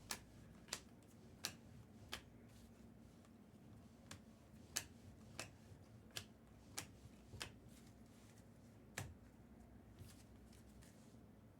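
Bowman Chrome trading cards being flipped through one at a time, each card giving a soft click, about one every two-thirds of a second with a short pause partway through.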